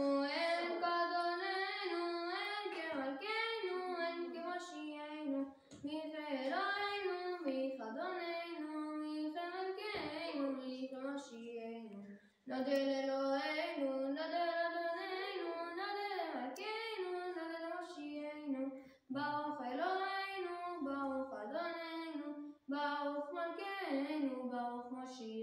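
A boy's unbroken voice chanting Hebrew prayers to a melodic liturgical chant, sung in long phrases with a few brief pauses for breath.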